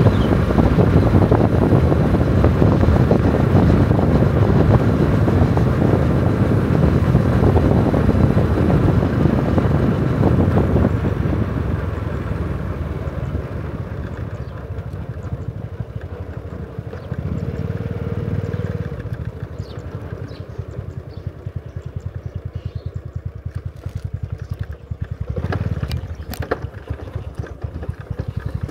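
A motor vehicle engine running, loud for about the first eleven seconds, then dropping quieter to a low, rapid pulsing.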